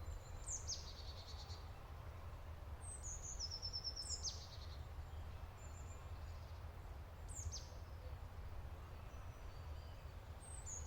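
Songbirds calling faintly: about five short, high calls that drop in pitch, some running into a quick buzzy trill, over a low steady rumble.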